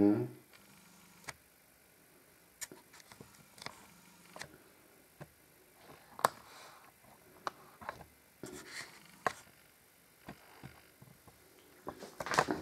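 Scattered small clicks and knocks in a small room, with a short low vocal sound right at the start and a quick cluster of clicks near the end.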